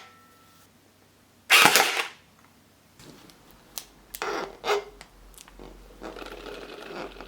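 An electric automatic gel ball blaster fires one short, sharp burst about a second and a half in. Softer knocks and handling noise follow.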